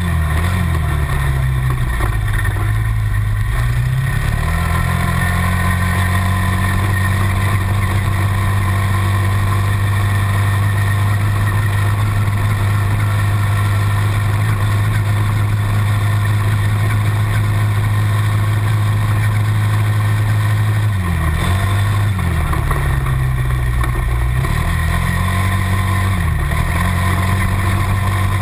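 Quad bike engines running hard on a dirt-track hill climb: the camera-carrying TGB Target 325's engine up close, with the Suzuki LTZ 400 running just ahead. The engine note dips and climbs back near the start and twice more later on.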